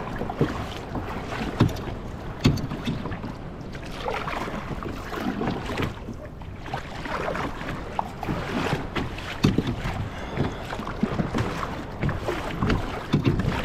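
Water splashing and lapping around a kayak, with a few short knocks against the hull and wind on the microphone.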